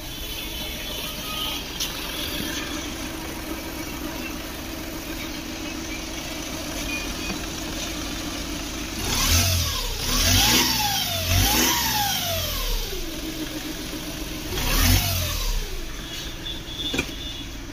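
VW Polo three-cylinder TDI diesel engine running on a freshly fitted timing belt, idling steadily, then revved up and down two or three times about halfway through and blipped once more near the end.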